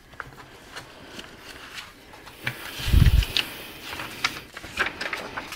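A large spiral-bound paper book being handled and its cover turned over: papery rustling and small clicks, with a thump about three seconds in as the cover comes down.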